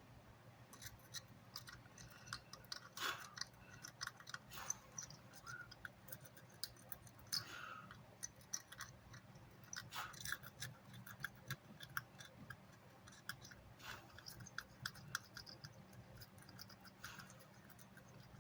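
Irregular small clicks, taps and scratching from handling a car amplifier's circuit board and hand tools on a workbench, over a faint steady low hum.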